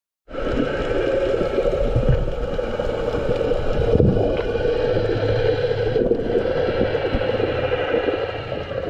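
Underwater sound: a steady mechanical drone with a constant whine, over muffled water noise, starting just after the opening.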